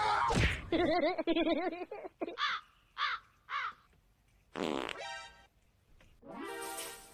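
Cartoon-style comedy sound effects: a wobbling, fart-like buzz about a second in, then three short falling squeaks about half a second apart, and a few more brief effects near the end.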